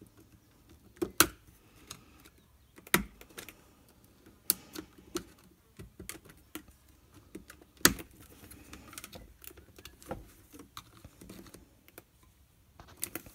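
Irregular clicks and taps of a small metal screwdriver and the frame's tensioning wire against the hard plastic of a Flow Hive Flow Frame, as the wire is worked down into its notches. Several sharper clicks stand out among the lighter ones.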